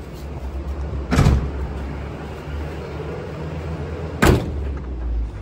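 Truck engine idling with a steady low hum, with two sharp bangs of a truck cab door, about a second in and again about four seconds in.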